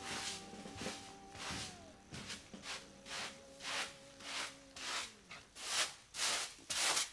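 A household broom sweeping a floor in quick repeated strokes, about two a second, getting louder toward the end. A few held notes of background music fade out during the first seconds.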